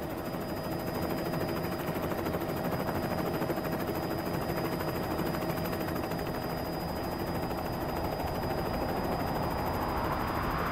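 Helicopter hovering close overhead: fast, steady rotor chop with a constant turbine whine, heard from just beneath it on the rescue winch cable.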